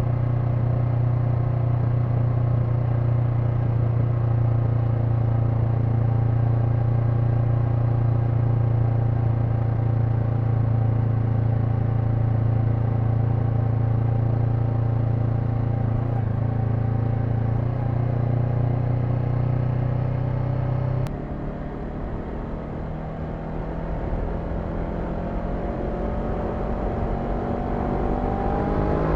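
Honda NX500's parallel-twin engine running at a steady cruise, a constant drone. About two-thirds of the way through the throttle closes and the engine note drops and quietens. Near the end it revs up again, the pitch rising as the bike accelerates.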